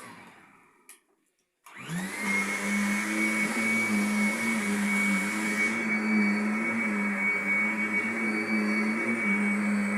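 Vacuum cleaner switched on a little under two seconds in. Its motor whine rises and settles into a loud, steady run, and the high hiss drops away about six seconds in.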